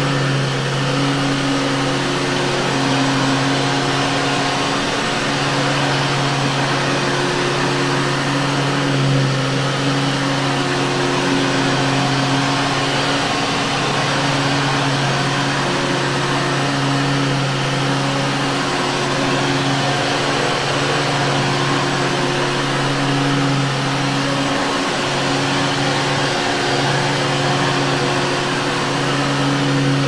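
Vintage Hoover Caddy upright vacuum cleaner running steadily on carpet: a constant low motor hum over the rush of air, the hum dipping slightly now and then.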